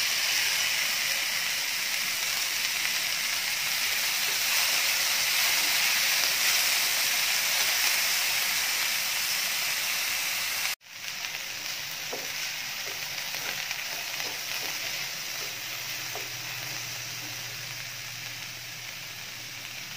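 Diced onion, capsicum, carrot and tomato sizzling in oil in a nonstick frying pan, with now and then a soft scrape of a wooden spatula stirring them. The sizzle breaks off for an instant about halfway through and goes on softer.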